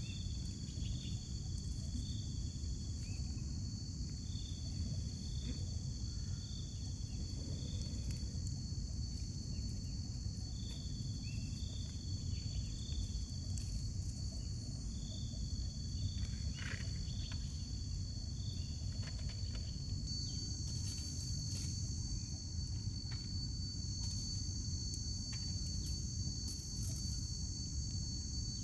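Forest insects trilling, a steady high buzz, with short high chirps repeating in runs of a few at a time, over a constant low rumble of outdoor noise.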